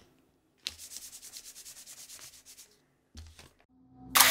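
Vending machine bill acceptor working a dollar bill that it refuses: a quiet rasping whir of about ten ticks a second for two seconds, a short knock, then a loud rushing burst near the end.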